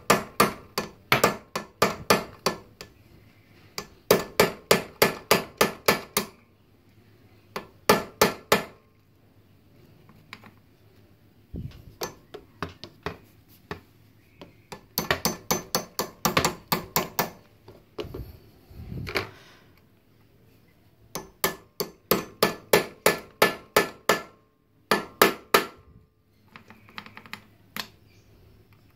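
A hammer striking a flat-blade screwdriver used as a punch against a motorcycle drive-chain link, to work the link loose so the stretched chain can be shortened. The blows come in runs of quick taps, about four a second, with short pauses between runs.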